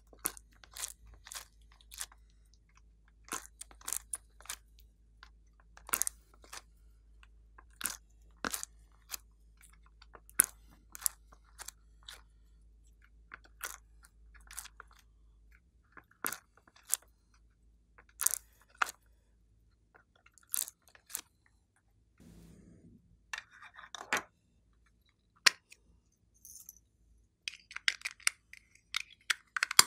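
Sticky glossy slime being peeled out of a silicone mould, giving sharp, irregular clicks and crackles. Near the end, a small plastic container is handled with a quick run of clicks.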